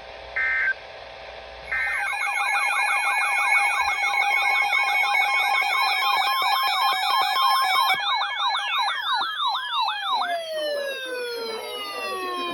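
Short bursts of Emergency Alert System data tones, the end-of-message code closing the alert. They are followed by an electronic siren yelping rapidly, about four sweeps a second, over steady tones. Over the last few seconds the siren's pitch falls away.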